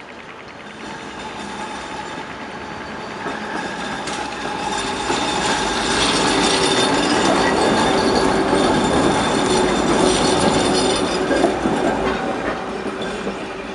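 A GVB 12G articulated tram passing close through a street junction, its wheels rattling over the crossing rails with some steady whine. It builds up, is loudest in the middle, and fades near the end.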